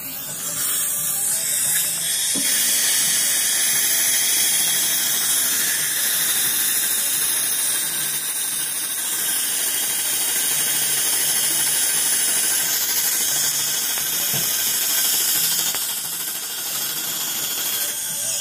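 Dental equipment in use in the patient's mouth, giving a steady high hiss throughout.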